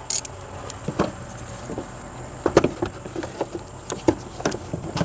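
A hand ratchet with a short extension and socket making scattered, irregular light clicks and knocks as it is fitted onto a 7mm bolt inside the wheel well, the socket being felt for by touch rather than seen.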